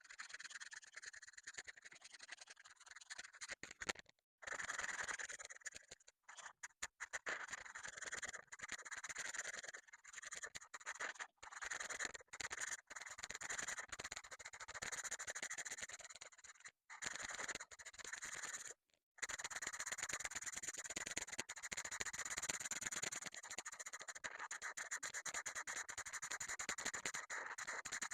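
Colouring tool scratching on paper in rapid back-and-forth strokes, cut off abruptly by short silent gaps several times.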